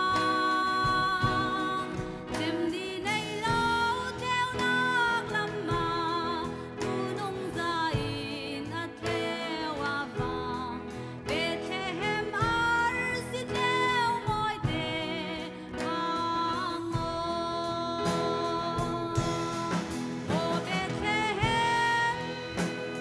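A woman singing into a handheld microphone over instrumental accompaniment, her held notes wavering with vibrato.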